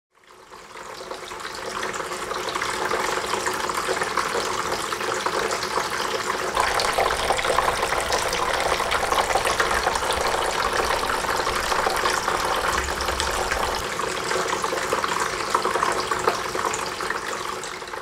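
Water falling and splashing steadily down the tiers of a small tabletop waterfall fountain into its basin, fading in over the first couple of seconds.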